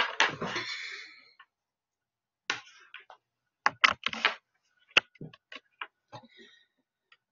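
Objects being handled at a desk: a clatter with a brief rustle at the start, then a scattered series of sharp clicks and taps.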